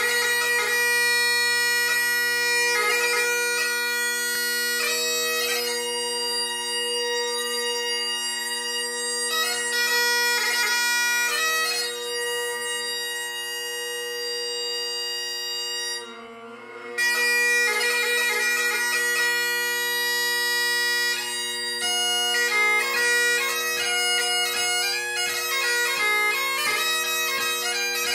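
Great Highland bagpipe playing: steady drones sound throughout under the chanter's melody. The chanter breaks off for about a second midway while the drones keep going, then returns with quick, tightly ornamented notes.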